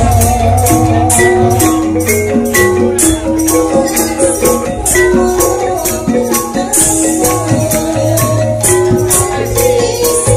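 Javanese gamelan ensemble playing, its thick bronze keys and kettle gongs struck hard in a running melody over a steady beat of crisp high strokes about three a second. A deep gong hum sounds under it near the start and again near the end.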